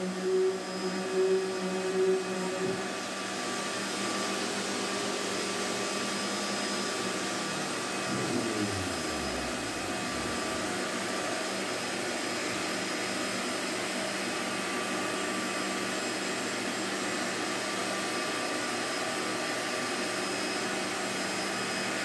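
Shop vacuum running steadily. For the first few seconds a power tool runs with it, and about eight seconds in the tool's motor winds down with a falling whine.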